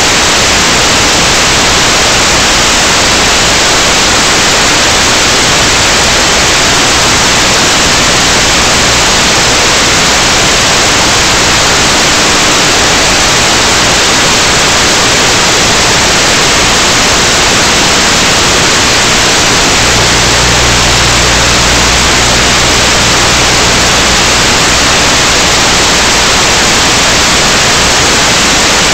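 Loud, steady static hiss from an analog FPV video receiver's audio channel, recorded by the goggles' DVR with no sound fed from the camera. A faint low hum lies underneath and grows stronger for a few seconds about two-thirds of the way through.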